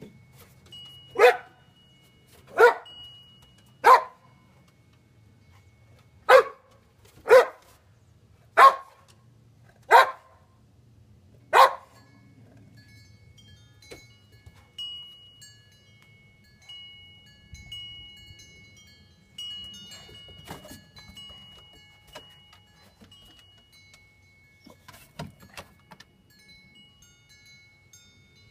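Boxer dog barking: eight sharp single barks, a group of three about a second and a half apart, then after a short pause five more.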